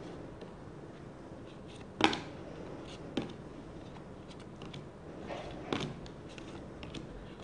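Board-game cards being taken one by one off a handheld deck: quiet sliding of card on card with a few sharp card snaps, the loudest about two seconds in and another about a second later, then two softer ones near the end.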